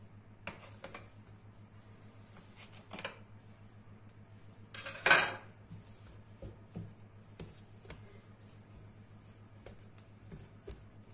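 Hands dividing bread dough and setting the pieces down on a granite countertop: scattered soft taps and knocks, with one louder, harsher clatter lasting about half a second about five seconds in, over a low steady hum.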